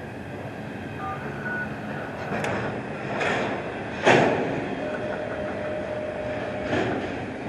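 Double-stack intermodal freight cars rolling past, wheels on rail giving a steady rumble that swells and eases, with one sharp loud bang about four seconds in and a faint steady tone in the second half.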